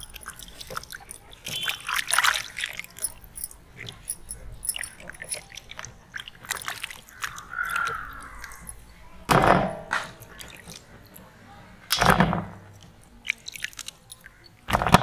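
Fruit being washed by hand in a large metal basin of water: water sloshing and splashing in irregular bursts, with two or three louder splashes or knocks in the second half.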